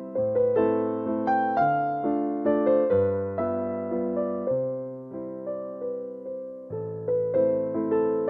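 Background music: a keyboard melody with notes struck about every half second, each fading away, over low bass notes.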